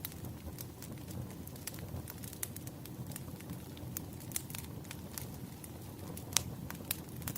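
Campfire crackling: a steady low noise of the burning fire with frequent irregular sharp crackles and pops, one louder pop a little past six seconds in.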